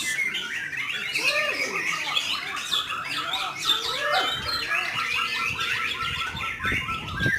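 Many caged songbirds, white-rumped shamas (murai batu), singing over one another in a dense, continuous chorus of overlapping chirps and warbles.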